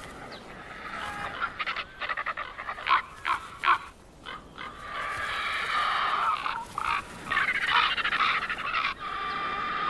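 Ravens and griffon vultures squabbling over a carcass: a quick run of short, harsh calls, then from about five seconds in a denser stretch of continuous harsh calling.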